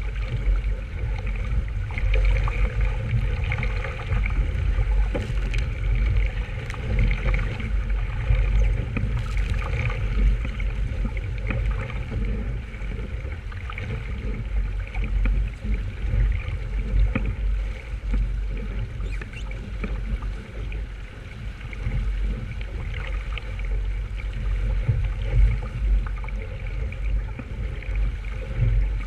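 Water rushing and splashing along a small sailboat's hull under way, with wind buffeting the microphone in a heavy, uneven rumble.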